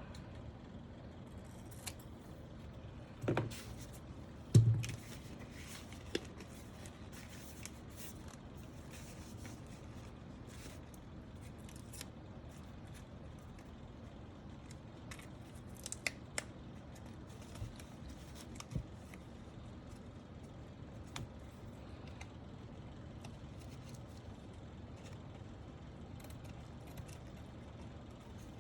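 Small plastic clicks and taps from handling mechanical-keyboard parts and switches, scattered and irregular. Two louder knocks come at about three and four and a half seconds in.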